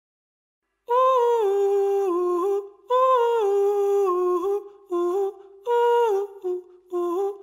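About a second of silence, then the opening of a song: a lone wordless voice humming a slow melody in short phrases, sliding down between notes.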